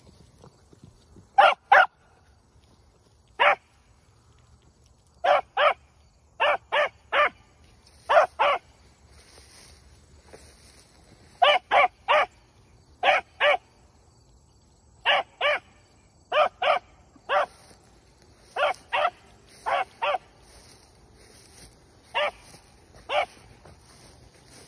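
A six-and-a-half-month-old rabbit hound pup barking in short barks, singly or in quick groups of two or three, every second or two, as he runs a rabbit's scent trail.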